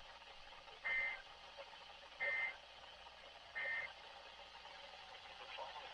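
Three short, equal data bursts, each a warbling two-tone chirp, about 1.4 s apart, over steady radio hiss from a NOAA Weather Radio broadcast. This is the SAME digital code, and the short bursts in threes are its end-of-message signal closing an alert.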